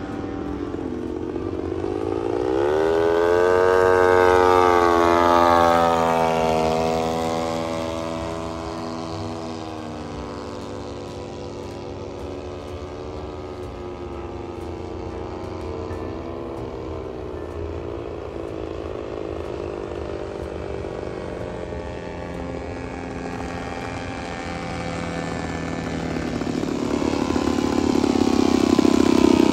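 Propeller engines of radio-controlled scale biplanes flying aerobatics. One passes close about three to six seconds in, its pitch rising and then falling away, and the engines then run more distantly. Near the end a biplane comes in low over the grass and its engine grows loud as it lands.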